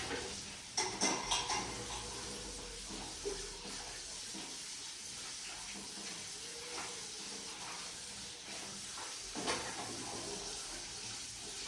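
Pots and dishes clinking and knocking in a cluster about a second in and once more near the end, over a steady hiss.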